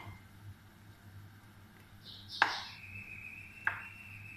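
Wooden spatula stirring a chicken and vegetable stew in a frying pan, knocking sharply against the pan three times, loudest about two and a half seconds in. A faint steady high whine runs under it from about three seconds in.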